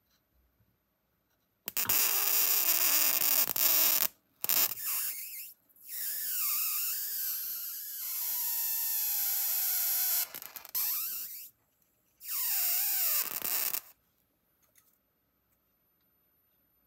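High-voltage arc from a homemade flyback-transformer generator: a loud buzzing hiss with a whine that wavers and slides in pitch. It comes in four spells of one to five seconds, each starting and cutting off sharply.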